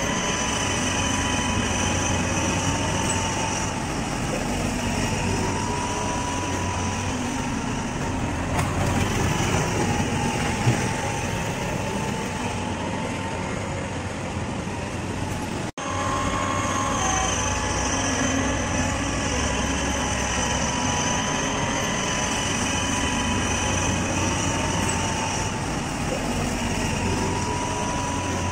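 Steady running noise of heavy rail machinery: a low rumble with a steady high whine, cut off for an instant about halfway through.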